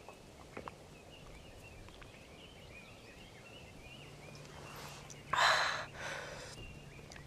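Quiet outdoor trail ambience with faint high chirping in the first few seconds. About five and a half seconds in comes a loud, short, breathy rush, like a hard exhale close to the microphone.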